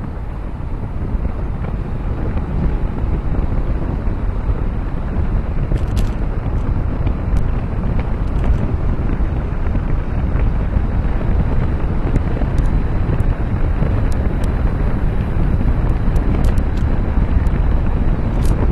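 Wind rushing over the microphone of a camera riding on a moving car, over a low rumble of road and tyre noise, growing louder over the first few seconds.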